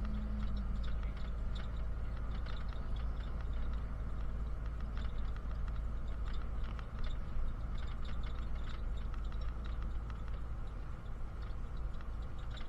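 Inside a moving bus: the engine and road noise make a steady deep rumble, with frequent light rattles and clicks from the bus's fittings.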